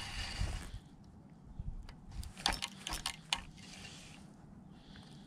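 Spinning reel and rod being handled: a brief hiss at the start, then a cluster of sharp metallic clicks two to three seconds in.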